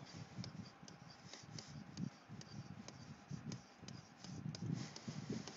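Faint, irregular scratching and ticking of a stylus writing on a tablet, with soft low knocks.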